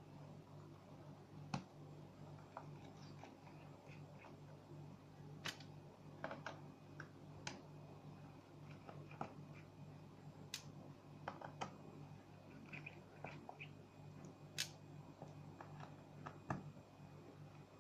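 Faint, irregular small clicks and taps of a precision screwdriver working the bottom-case screws of a MacBook Air, metal tool on small screws and the aluminium case, over a faint steady low hum.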